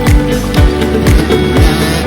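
Background music with a steady beat, about two kick-drum hits a second over held tones.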